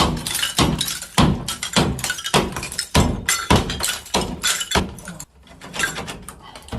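A run of heavy thuds, about two a second, that thin out and grow quieter near the end.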